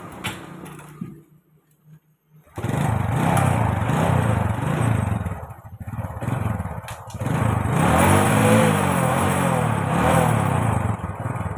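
Honda Supra X 125 single-cylinder four-stroke engine, briefly quiet about a second in, then revved hard several times in gear, its pitch rising and falling with each throttle opening. The revving is the symptom of a motorcycle that will not move under throttle, which the mechanic traces to a gear shaft whose splines are stripped.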